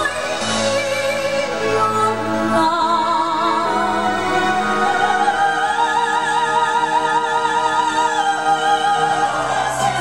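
A female singer performs in a classical, operatic style with wide vibrato, backed by a live orchestra, and holds one long note through the second half.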